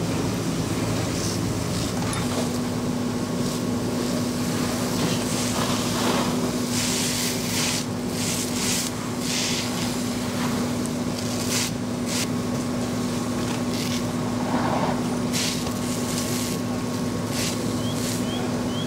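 Fire hose streams spraying water with a steady rushing hiss, over the even hum of a fire engine's pump, which comes in about two seconds in. Short bursts of hiss break in here and there as the water hits the burning wreckage.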